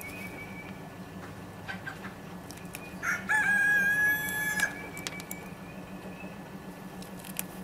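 A rooster crows once, about three seconds in: a single call of about a second and a half, mostly held on one pitch. A few faint clicks come before and after it.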